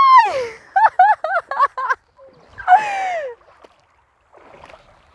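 A woman squealing and yelping at the shock of icy river water underfoot while wading barefoot. It opens with a long falling squeal, then a quick run of about eight short yelps, and another falling cry about three seconds in.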